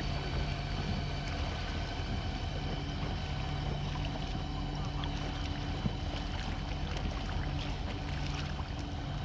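Dinghy outboard motor running at a steady speed, a constant hum over the rush of water.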